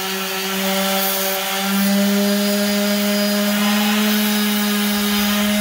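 Makita random orbital sander running with a steady hum, its 120-grit disc held lightly against a veneered tabletop to sand off the factory finish.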